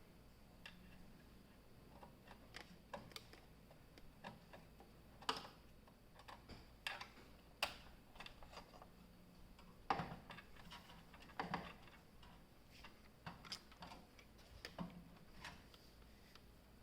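Scattered small clicks and taps of screws being driven into the standoffs to fasten a PC motherboard into its case, irregularly spaced, with a few louder knocks.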